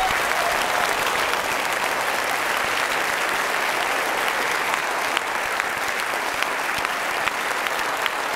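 A large audience applauding, steady and dense clapping from many hands throughout.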